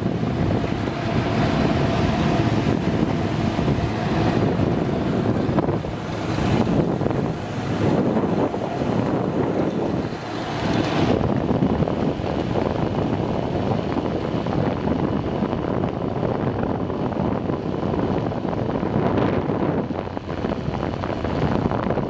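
Steady rushing noise of an open cable car running along its cable high over a canyon, with wind buffeting the microphone. The hiss turns duller about halfway through.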